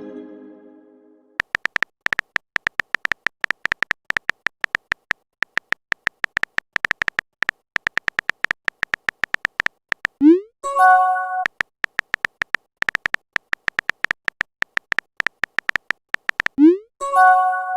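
Rapid, irregular clicks of a phone keyboard typing out chat messages. Twice, about ten seconds in and near the end, a message notification sound breaks in: a short rising swoop followed by a brief chime.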